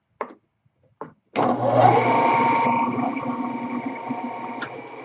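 Two short knocks, then a bandsaw's motor starts abruptly about a second and a half in and runs with a steady hum that slowly eases in level.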